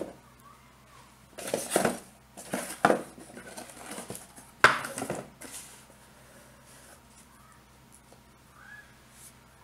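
Steel balls clacking and rattling against the neodymium magnets and track of a Gauss rifle: two short clattering bursts, then one sharp metallic click about four and a half seconds in, followed by a few faint ticks.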